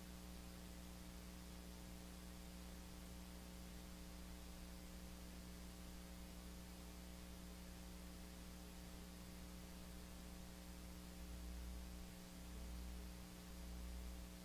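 Steady electrical mains hum with faint hiss, close to silence. Low rumbling swells come in near the end.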